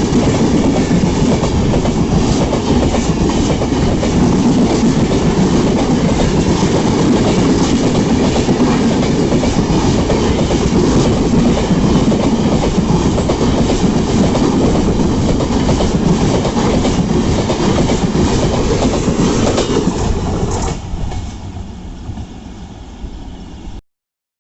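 Express train of LHB coaches rushing past at speed, a loud steady roar of wheels clattering over the rail joints. About 21 seconds in the noise drops sharply as the train draws away, then cuts off abruptly near the end.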